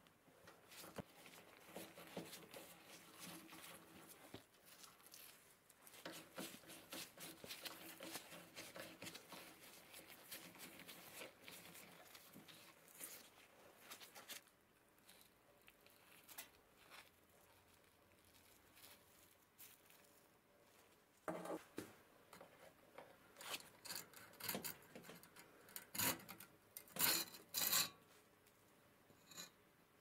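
Metal hand tools scraping, rubbing and clicking on the rusty iron burner of an antique gas heater. Fine continuous scraping runs through the first half, then a quieter stretch, then a run of louder separate scrapes and knocks near the end.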